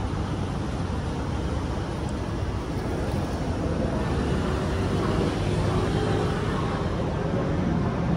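City street ambience: steady traffic noise from road vehicles.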